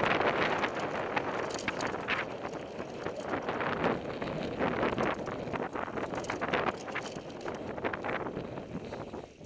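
Mountain bike descending a dry dirt trail at speed: continuous tyre noise on loose dirt with the bike rattling and knocking over bumps, and wind rushing over the microphone.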